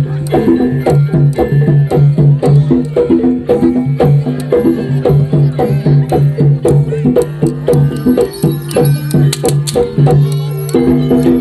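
Jaranan accompaniment music: a traditional Javanese ensemble of hand drums and tuned gongs playing a dense, steady rhythm, with quick sharp strikes over a repeating low ringing note.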